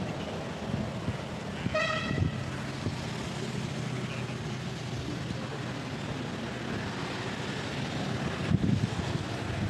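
Steady outdoor background noise with a faint low hum. About two seconds in, a single brief, flat tone with evenly spaced overtones sounds for about half a second.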